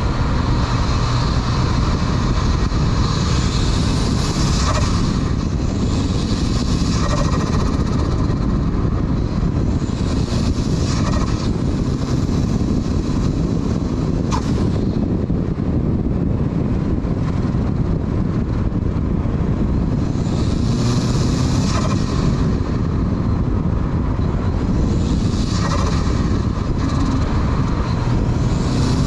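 Turbocharged 1994 Mazda Miata's 1.8 L four-cylinder engine, fitted with a Garrett GT2554R turbo, pulling hard and backing off several times, with turbo whistle and blow-off valve sounds as it comes off boost. Heavy wind and road noise on an outside, hood-mounted microphone runs under it.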